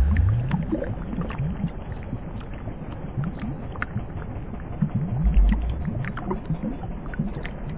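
Underwater bubbling of water flowing through a pipe: many small, quick bubble blips and ticks over a low rumble, with a deep low swell at the start and again about five seconds in.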